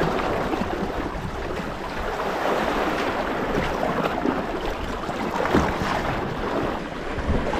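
Sea kayak being paddled: the paddle blades dip and splash in calm sea water on alternate sides, over a steady rush of water along the hull. A couple of strokes splash louder, one about five and a half seconds in and one near the end.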